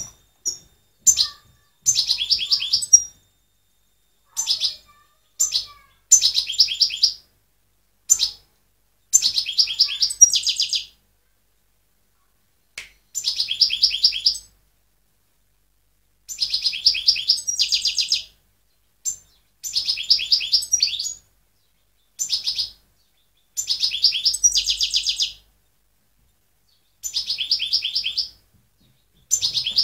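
European goldfinch singing: short phrases of rapid, high twittering notes repeated one after another with brief pauses between them, several phrases ending in a denser trill.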